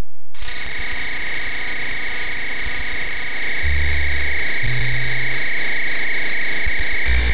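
Computer-generated electronic sound from an interactive Java sound-and-image program: a dense, noisy layer with several steady high tones cuts in suddenly about half a second in. Low droning tones switch on and off over it, a deep one for about a second near the middle, then a slightly higher one, then the deep one again near the end.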